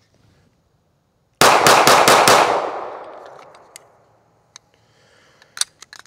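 Sig P320 XCompact 9mm pistol firing a rapid string of about six shots in roughly a second, with a long echo fading away after. A few light clicks follow near the end.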